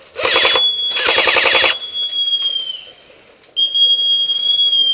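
Airsoft AK-74M replica firing two short full-auto bursts close to the microphone. A long, high whistle blast sounds over the bursts, and a second long whistle blast starts about three and a half seconds in.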